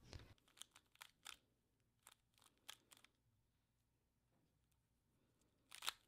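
Faint, scattered plastic clicks of a 3x3 Rubik's Cube's layers being turned by hand, over near silence, with a short louder flurry near the end.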